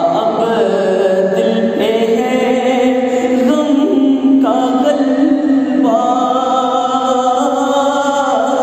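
A man's voice chanting a devotional Islamic salaam of farewell to Ramadan, in long held notes that slide slowly from one pitch to the next.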